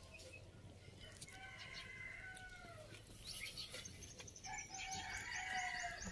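A rooster crowing faintly, in long arching calls, with quick high bird chirps in the second half.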